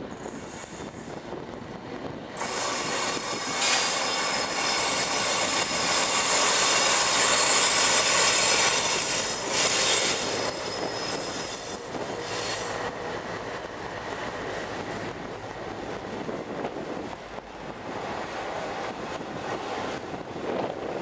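A British Rail Class 60 diesel-electric locomotive, its Mirrlees eight-cylinder engine running, approaches and passes close by, loudest for about ten seconds from a couple of seconds in. After it, coal hopper wagons roll past, their wheels clicking on the rails with some squeal.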